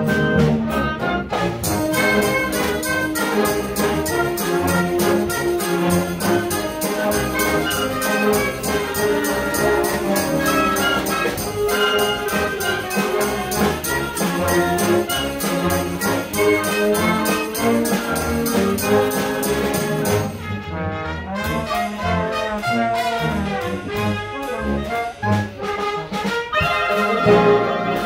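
Concert band playing, with brass and woodwinds together. About twenty seconds in the music thins out and softens briefly, then builds again near the end.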